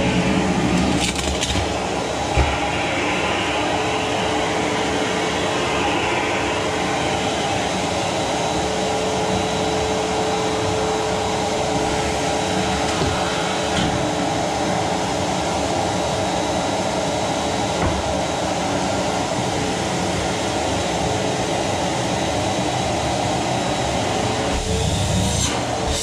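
Rowenta vacuum cleaner running steadily, with a single knock about two seconds in.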